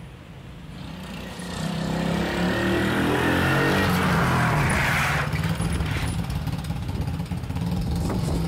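Small Chinese quad bike's (ATV) engine coming up and passing close by, getting louder from about a second and a half in, with tyres hissing on the wet tarmac as it goes past, then running on as it pulls away.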